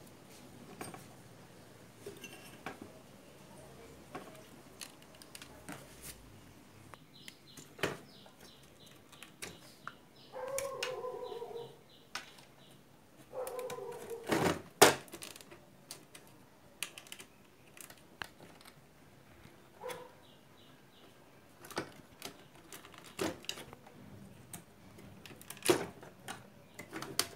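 Scattered clicks, taps and light rattles of hands handling a CRT TV's chassis, circuit board and wiring, with the sharpest knock about fifteen seconds in.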